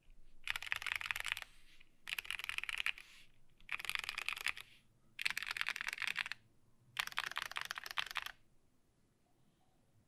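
Fast typing on the MC-76K "Fat Boy" mechanical keyboard, with lubed vintage Cherry MX Black linear switches and tall SA-profile keycaps in an aluminium-top case with no sound dampening. It comes in five quick bursts of rapid keystrokes with short pauses between them, and stops about eight seconds in.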